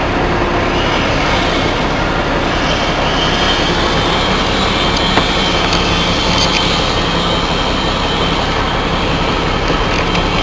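Logging truck driving, with steady heavy engine and road noise. A faint high whine joins about two and a half seconds in.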